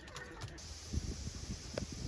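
Wind buffeting the microphone in irregular low gusts, over a steady high hiss, starting abruptly about half a second in.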